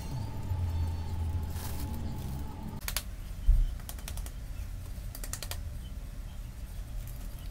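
Hands working loose potting mix into a terracotta pot around a pothos, with soil grains and perlite pattering: quick clusters of small clicks and a dull thump about three and a half seconds in. A low hum runs underneath for the first three seconds, then stops.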